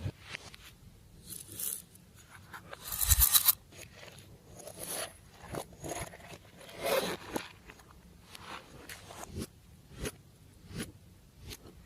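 Glossy slime being worked by hand, giving a run of short, irregular sticky crackles and squelches. The loudest comes about three seconds in, another near seven seconds.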